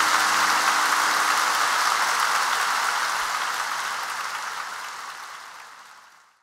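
Concert audience applauding at the end of a song, with the band's last held note dying away in the first second. The applause fades out steadily over the last few seconds.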